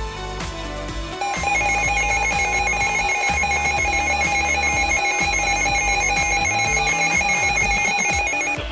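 Emergency Alert System attention signal: a loud, steady electronic alarm tone that cuts in about a second in over background music and stops abruptly near the end. It heralds a Child Abduction Emergency (Amber Alert) broadcast.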